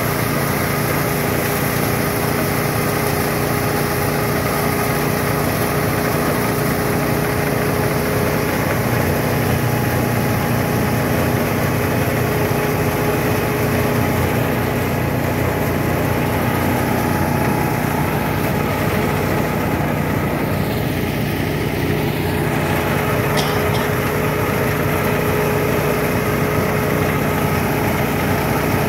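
Small engine driving a rice thresher, running steadily at constant speed.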